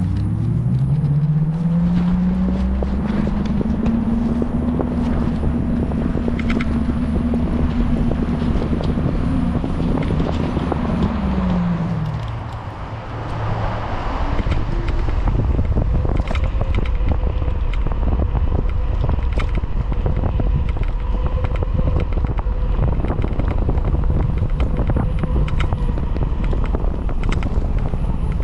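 The electric whine of a QS V3 5000 W e-bike hub motor under hard power on a 72 V battery. It rises in pitch as the bike accelerates, holds high, then falls away about twelve seconds in as the bike slows. After that, rushing road and wind noise goes on under a fainter steady whine.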